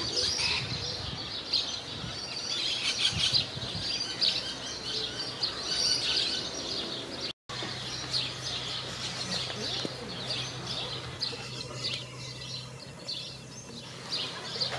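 Many small birds chirping and twittering in quick, overlapping high calls. A brief dropout cuts the sound about halfway through, and after it a faint steady low hum runs under the chirps for several seconds.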